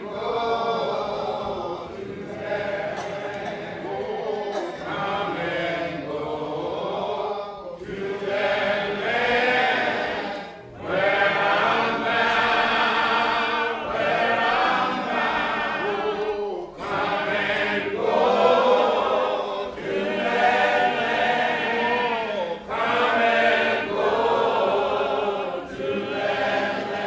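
A choir singing, in phrases several seconds long with short breaks between them.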